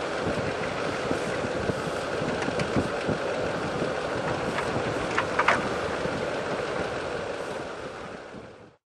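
JBS VM2648 Vertimax truck-mounted spreader at work, a steady rushing machine noise mixed with wind on the microphone, with a couple of sharp ticks about five seconds in. The sound fades out near the end.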